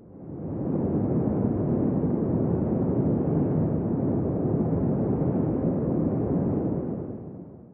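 Logo-sting sound effect: a deep, noisy rumble with no tune. It swells in over about a second, holds steady, and fades away near the end.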